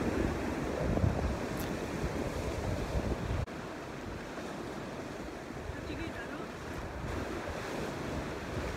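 Ocean surf washing over a rocky shore, with wind buffeting the microphone. The gusts are heavier at first, and the overall level drops suddenly about three and a half seconds in, leaving a steadier wash of surf.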